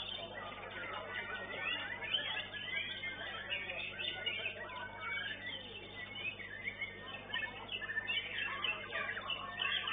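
White-rumped shama and other contest songbirds singing: a dense, unbroken run of overlapping chirps and quick whistles.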